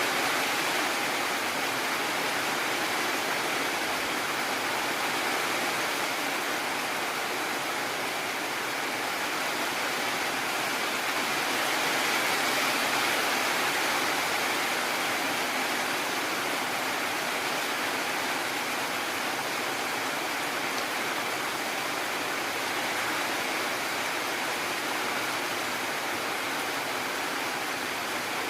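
Heavy rain falling steadily, an even hiss with no let-up and no thunder.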